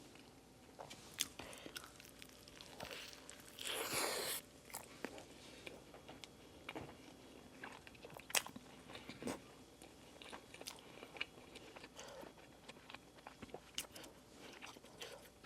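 Close-miked chewing of a mouthful of hamburger stuffed with buldak noodles and chicken nuggets: soft, wet mouth clicks and smacks scattered throughout, with one louder, longer burst about four seconds in.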